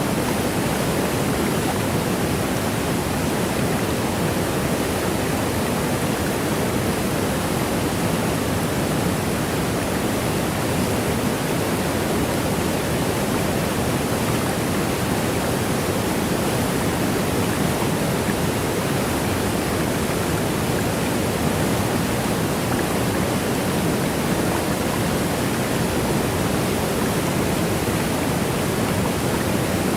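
Waterfall: a steady, unbroken rush of falling water, fullest in its deep, low part.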